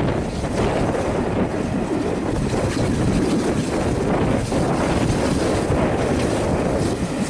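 Strong gusty wind buffeting the microphone, a steady rushing rumble heaviest in the bass.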